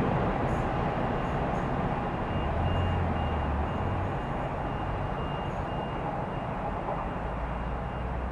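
A car alarm beeping at one steady pitch, about two to three beeps a second, set off by a locomotive passing through the station. Under it the rumble of the passing train slowly fades.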